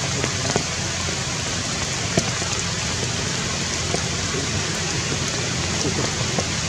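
Steady rain hiss, with scattered sharp ticks of single drops landing.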